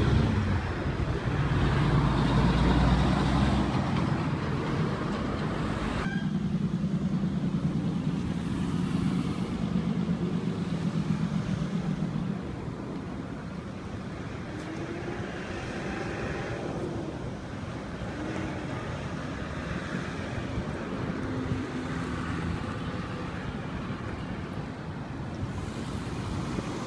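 Heavy lorry's diesel engine running close by with a low, steady hum for about the first twelve seconds, then quieter road traffic with cars going past.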